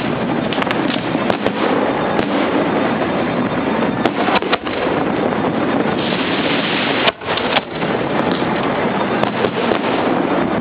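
Fireworks display heard at close range: a dense, continuous barrage of shell bursts and crackle, with sharp cracks every second or so and a brief dip about seven seconds in.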